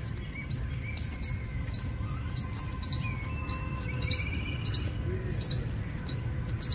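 Footsteps walking on a brick path, about two a second, over a steady low rumble, with small birds chirping and a short trill about four seconds in.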